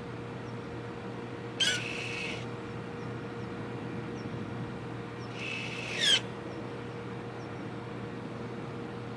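Honda Vezel's electronic parking brake actuator working twice, about 1.6 s and 5.5 s in, each time giving a short high squeal (the 'kyuu' noise) under a second long, the second rising in pitch; a steady low hum runs underneath. The squeal is the known electronic parking brake fault on recent Honda models that dealers fix with a countermeasure part.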